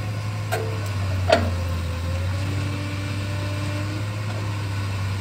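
A sheet-piling rig's diesel engine running steadily with a low hum. Two sharp knocks come about half a second and about a second and a half in.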